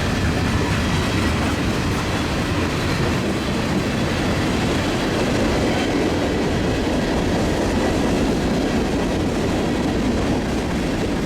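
Cars of a mixed freight train rolling past, a steady loud rumble of steel wheels on the rails.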